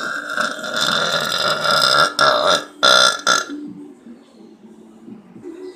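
A person letting out a long, loud burp that breaks into a few pulses near its end and stops about three and a half seconds in.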